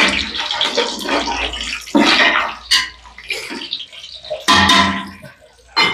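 Whole spices (cinnamon sticks, bay leaves, cloves, cardamom) sizzling in hot cooking oil in a large aluminium pot, while a spatula stirs them and scrapes against the pot several times.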